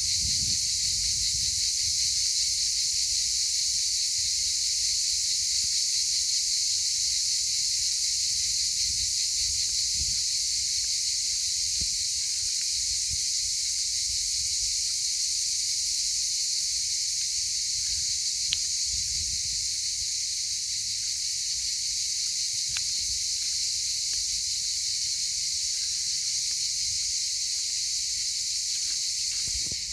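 Cicadas in a dense, steady chorus, a high continuous buzz, with a faint low rumble underneath.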